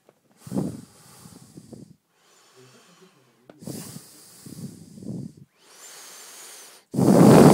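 A man snoring: long, noisy breaths a few seconds apart, with a much louder snore starting near the end.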